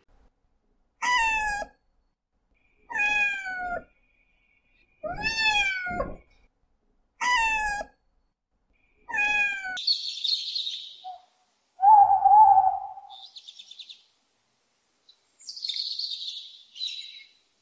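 Domestic cat meowing five times, about two seconds apart, each meow a drawn-out call that bends down in pitch. From about ten seconds in, bird calls and chirps follow, with one louder, lower call near the middle of that stretch.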